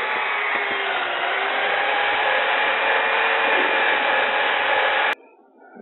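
Electric drill running a sanding disc on a flexible backup pad against a wooden hat turning on a lathe: a steady motor whine over the rasp of sandpaper on wood. It cuts off suddenly about five seconds in.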